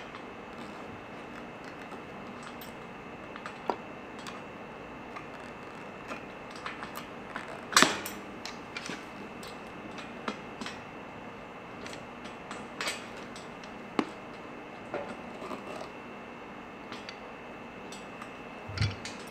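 Scattered small metal clicks and clinks as a washer and cotter pin are fitted at the end of a hand truck's wheel axle and the pin is bent over with pliers to hold the new wheel on. The loudest click comes about eight seconds in.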